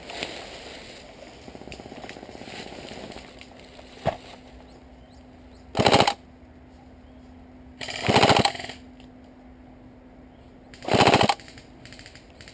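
Airsoft gun firing three short full-auto bursts, each well under a second, about two to three seconds apart.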